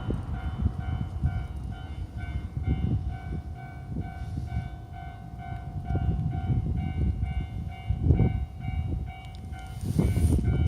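Level crossing warning bell ringing in a steady, evenly repeating pulse while a train passes with a low rumble of wheels on rails. The train noise swells near the end.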